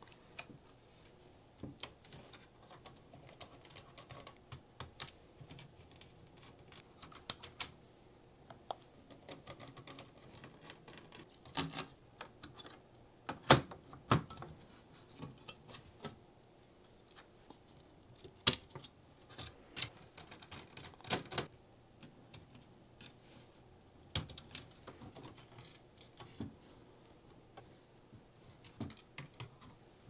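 Scattered light clicks and taps of small plastic and metal laptop parts being handled inside an open Acer Aspire E5-571: ribbon-cable connectors unlatched with metal tweezers and the motherboard worked loose from the plastic chassis. The taps are irregular, and a couple of sharper clicks near the middle are the loudest.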